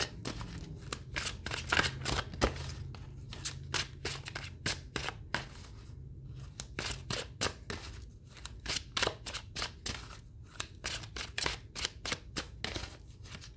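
A deck of tarot cards being shuffled by hand: a steady run of soft card slaps and clicks, a few per second.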